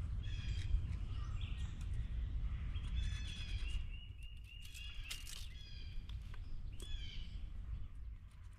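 Wild songbirds singing and chirping in repeated short phrases, over a steady low rumble.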